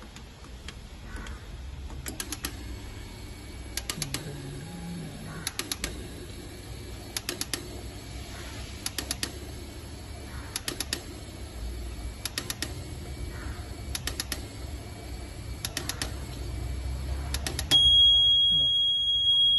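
Fuel injector cleaning and testing machine pulsing the Hyundai Creta's four petrol injectors: quick clusters of three or four sharp clicks about every second and a half to two seconds, over a low hum. Near the end the machine gives a long, loud, steady electronic beep.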